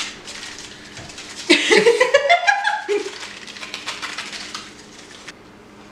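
Crinkling and crackling of an MRE's foil-laminate drink-powder pouch as it is torn and pulled open by hand, stopping a little before the end. A short voice sound, a rising then falling vocal, comes partway through.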